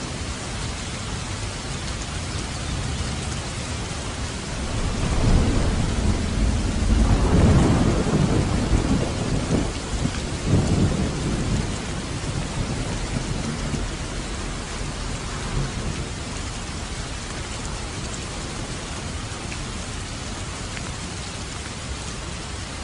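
Steady heavy rain with a roll of thunder that swells from about five seconds in, peaks around seven to eight seconds, and rumbles away by about twelve seconds.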